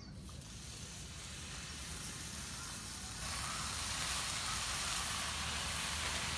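Raw bacon strips sizzling as they are laid on a hot, oiled Blackstone flat-top griddle. The frying hiss builds and jumps louder about three seconds in as more bacon goes down.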